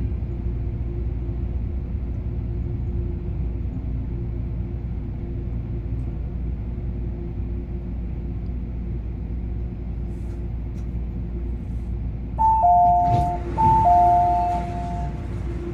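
Low steady rumble of an MTR Airport Express train standing in the station, then about twelve seconds in a two-note chime, a higher note joined by a lower one, sounds twice: the train's door-closing chime.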